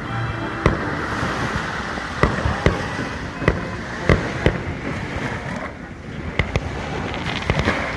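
Fireworks going off: irregular booming bursts, sometimes several in quick succession, over a continuous crackle. A dense run of bangs comes near the end.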